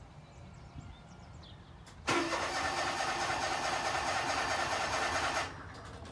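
Cold start attempt on a 1996 John Deere mower: the engine is cranked for about three seconds, starting suddenly about two seconds in and cutting off abruptly without staying running, as the mower turns out to be low on gas.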